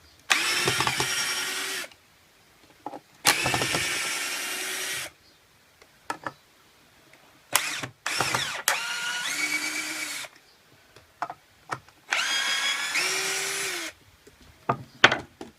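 BLACK+DECKER 20V MAX cordless drill running in reverse, backing drywall screws out of wood. The motor whines in four separate runs of about two seconds each, with light clicks in the pauses between them.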